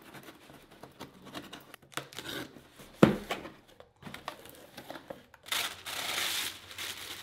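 Cardboard shipping box being opened by hand: the packing tape slit and the flaps rustled open, with a sharp knock about three seconds in. Near the end, tissue-paper wrapping crinkles for about a second.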